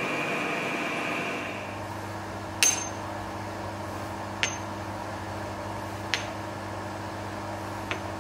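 Metal lathe running for about the first second and a half, giving way to a steady low hum. Over the hum, machined steel nuts are set down one at a time on a steel hex bar: four sharp metallic clinks, roughly one every second and a half.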